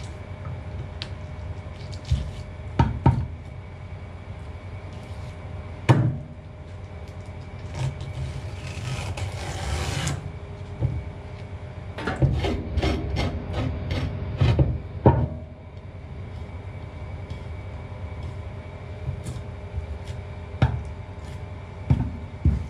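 Knife blade working a conger eel on a wooden cutting board. Scattered knocks of the blade against the board, a scraping stretch a little before the middle, and a quick run of taps a little after it. A faint steady hum runs underneath.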